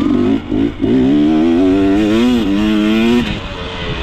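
Dirt bike engine blipped a few times, then pulling up in pitch and holding, with a brief dip partway and a drop near the end.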